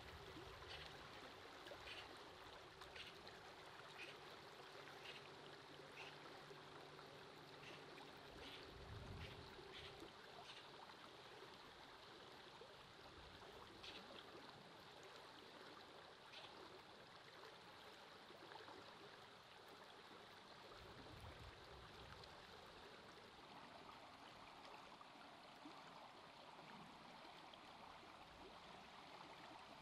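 Faint, steady sound of a river flowing over a gravel bed. Short faint ticks come about once a second through the first half, and a faint low hum is heard in the first third.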